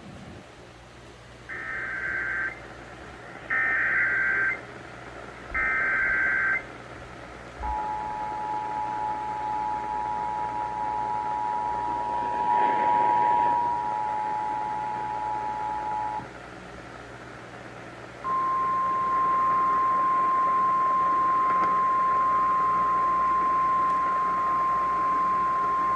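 Emergency Alert System tones heard over AM radio. First come three one-second bursts of SAME digital header data. Then the two-tone attention signal is held for about eight and a half seconds, and after a brief pause a single steady alert tone sounds for about seven seconds, announcing a flash flood warning.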